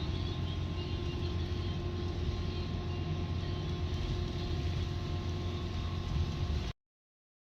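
Steady low rumble inside a moving vehicle, with a constant hum and a few fixed tones over road or engine noise, cutting off abruptly near the end.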